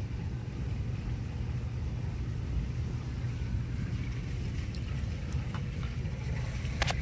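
A steady low outdoor rumble with a few faint clicks, and one sharper click near the end.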